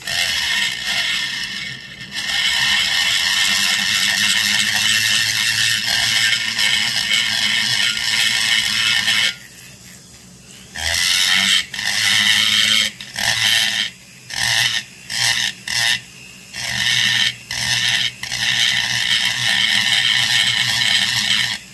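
High-speed rotary tool with a carbide burr grinding into a two-stroke chainsaw crankcase, cutting (trenching) the transfer passages. It runs steadily for about nine seconds, then stops and cuts in a string of short bursts with brief pauses.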